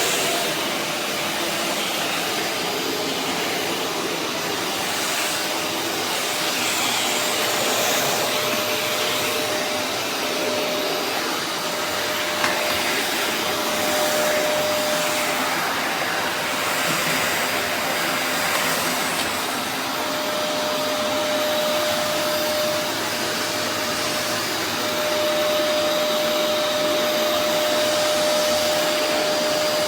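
Vacuum cleaner running steadily: a continuous rushing motor and airflow noise with a faint whine that comes and goes.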